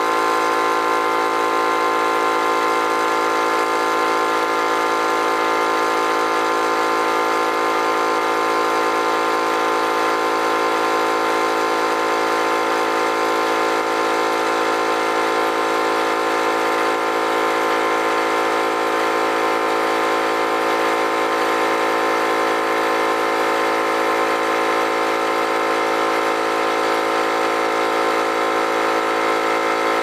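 21-gallon Central Pneumatic air compressor running steadily at an even pitch, its pump filling the tank while the pressure climbs toward the pressure switch's cut-out at just over 100 psi.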